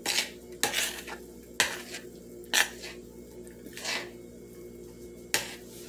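A metal utensil scraping and clinking against the side of a bowl while stirring thick ground chicken salad, about six sharp strikes at uneven intervals. A faint steady hum lies underneath.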